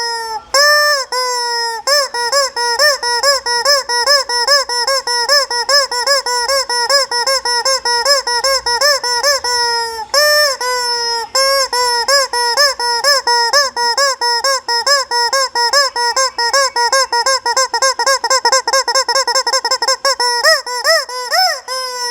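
Noise-making toy chicken squawking over and over in short, rising-and-falling honks, about three to four a second, coming faster for a while near the end.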